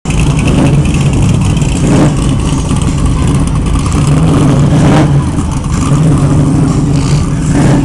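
Loud, deep engine rumble from classic American muscle cars pulling away at low speed, running steadily with a few brief surges.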